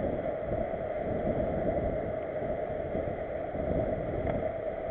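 Steady rush of wind on the microphone of a camera riding on a bicycle, mixed with tyre rumble on asphalt.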